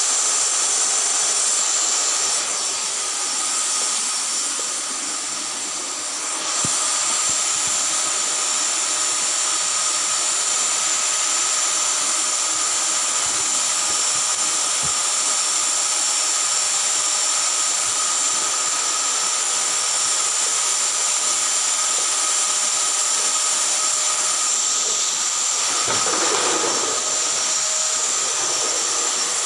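Steady rush of air over the whine of an electric motor, such as a household blower or vacuum appliance running continuously. It is muffled and quieter for a few seconds about two to six seconds in.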